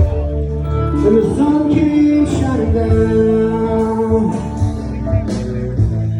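Country-style music: a singer over guitar and band, playing steadily.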